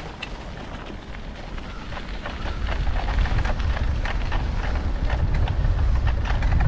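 Wind rumbling on the microphone of a moving bicycle, over a constant crackle of small clicks; the low rumble grows louder about two and a half seconds in.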